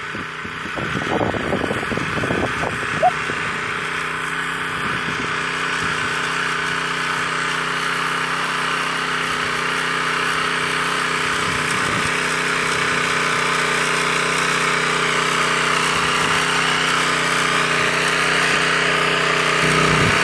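Walk-behind rotary tiller's small engine running steadily under load as it churns garden soil. It grows gradually louder as the tiller comes closer.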